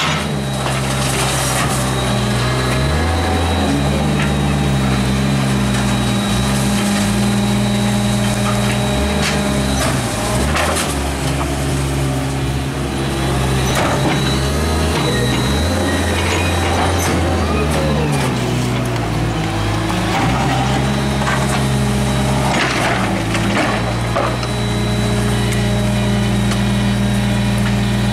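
Idling Peterbilt 320 rear-loader garbage truck with a McNeilus body: its engine speeds up and drops back several times while the hydraulic packer cycles, with scattered clanks and bangs of bulk trash being loaded and compacted in the hopper.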